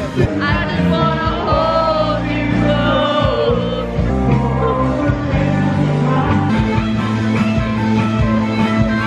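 Live rock band playing: distorted electric guitar, bass guitar and drums, with singing over them.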